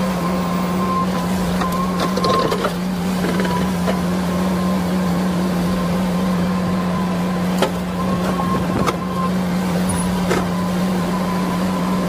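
Excavator running steadily: a constant engine hum, with a few sharp knocks in the second half.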